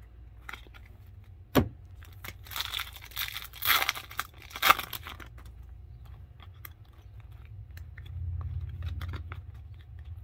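Plastic baseball card pack wrapper being torn open and crinkled, in several ripping bursts between about two and five seconds in, after one sharp tap near the start. Softer card handling follows over a steady low hum.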